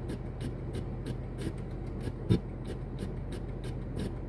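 Steady low hum with fast, even ticking, about three or four ticks a second, and a single sharp knock a little over two seconds in.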